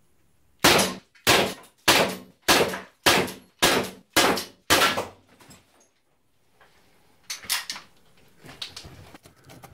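Umarex Walther PPQ T4E, a CO2-powered .43-calibre training pistol, fired eight times in quick succession, about 0.6 s apart, each sharp report echoing briefly in a small room. Quieter clicks and knocks follow a few seconds later as the pistol is handled.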